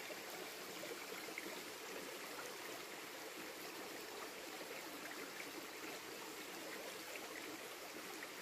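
A small stream's water running and trickling steadily.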